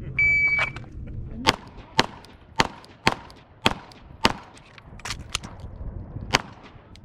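A shot timer's electronic start beep sounds about half a second long, followed by pistol fire from a 9mm Glock 17 in a competition stage run: about nine sharp shots, mostly half a second to a second apart.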